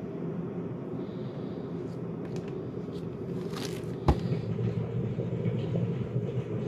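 Handling noise: a steady low rumble with a few light crackles, and one sharp knock about four seconds in.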